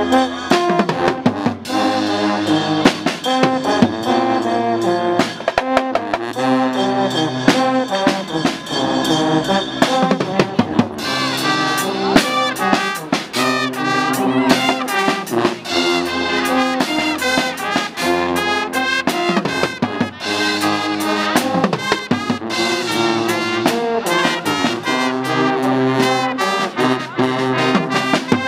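Guggenmusik brass band playing: trumpets, trombones, baritone horns and sousaphones over a drum kit with cymbals and a bass drum, in a steady beat.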